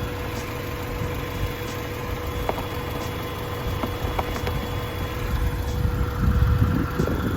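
Acura Integra's four-cylinder engine idling steadily, running again after having run out of fuel, with no other fault heard; the low rumble grows briefly louder near the end.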